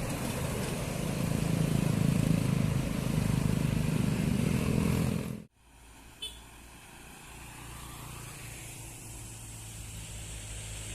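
A diesel bus climbing past close by, its engine loud for about five seconds. The sound then cuts off suddenly and is followed by a quieter, steady low engine hum of traffic, with one brief high chirp just after the cut.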